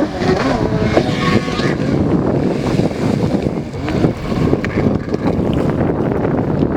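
Jet ski running out on the water, with wind buffeting the microphone.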